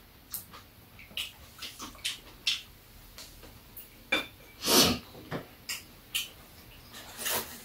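Eating at a table: metal chopsticks and spoons clicking and scraping against a metal pot and bowls, with chewing sounds in between. A longer, louder noise comes about five seconds in.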